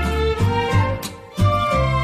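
Instrumental music with bowed strings over a sustained bass and occasional percussive strikes, dipping briefly about a second in before swelling back.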